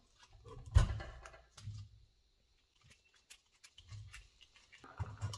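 Gloved hands handling the copper lead wires at an old loudspeaker's terminals: irregular rubbing, crinkling and small clicks. A sharper knock comes about a second in.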